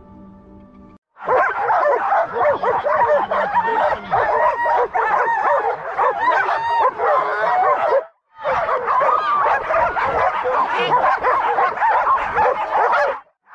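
A chorus of many dogs yelping, barking and whining together, the high-pitched, excited clamour of canicross dogs straining at their leads to start. It cuts out briefly about eight seconds in.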